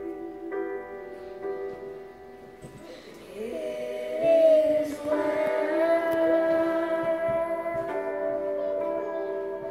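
A young girl singing along to a song with piano accompaniment played back from a computer. Separate piano notes sound for the first few seconds, then long held sung notes come in about three and a half seconds in.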